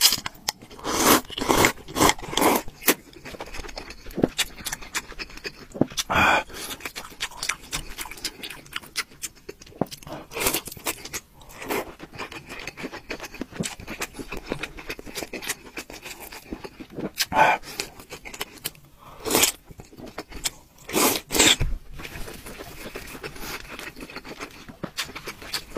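Noodles being slurped and chewed, close to the microphone: a series of loud short slurps, some in quick succession, with quieter chewing sounds between them.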